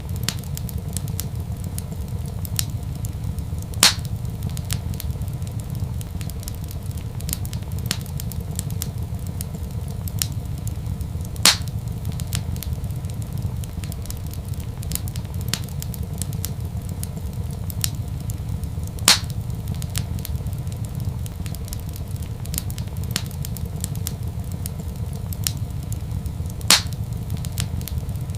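Wood fire crackling in a fireplace: a steady low rumble under many small crackles, with four louder pops spaced evenly about seven and a half seconds apart.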